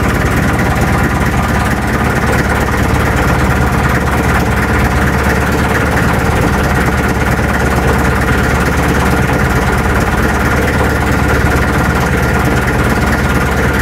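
A 4DR30 inboard diesel engine of a fishing bangka idling steadily.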